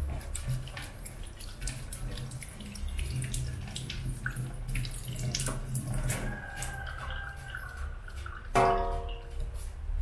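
Water from a tap splashing into a stainless-steel sink while hands wash in it, with small splashes and clicks throughout. About 8.5 seconds in comes a brief, loud pitched squeak.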